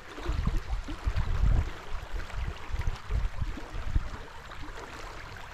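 Creek water running past a concrete low-water crossing, with wind gusting on the microphone as an uneven low rumble, strongest in the first two seconds and easing after.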